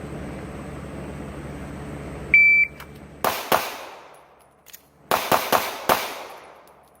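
Shot timer beeps once, then a pistol fires two quick shots, a pause of about a second and a half for a reload, and four more quick shots: a two-shot, reload, four-shot pistol standard drawn from concealment.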